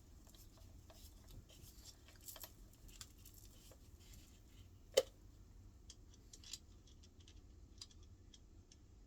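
Faint small clicks and scrapes of a screw being driven in by hand with a screwdriver, with one sharp metallic click about five seconds in.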